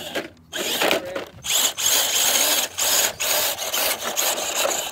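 Electric motor and geared drivetrain of a 1/10-scale Axial SCX10 II rock crawler running in repeated throttle bursts of about a second each, with a high whine running through each burst.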